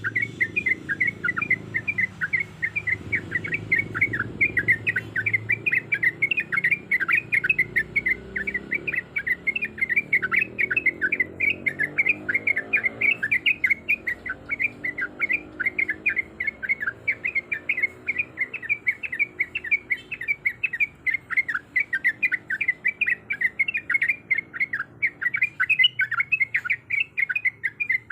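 Sooty-headed bulbul (trucuk) singing a long, unbroken rolling song: quick chirpy notes repeated about four times a second without pause.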